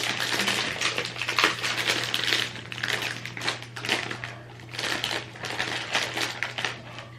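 Someone chewing crunchy caraway pretzel bites: a dense, irregular run of crisp crunches with brief pauses.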